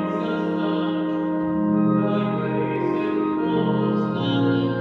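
Church organ playing slow, sustained chords, each held for a second or so before moving to the next.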